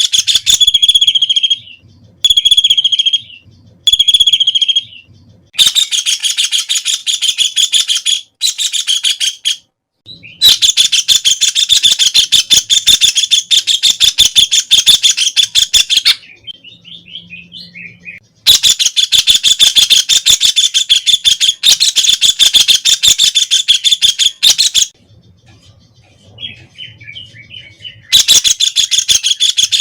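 White-throated kingfisher (white-breasted kingfisher) calling: loud, rapid rattling trills in a string of bursts, a few short ones at first, then longer ones of several seconds each with pauses between. Fainter short chirps come in two of the pauses.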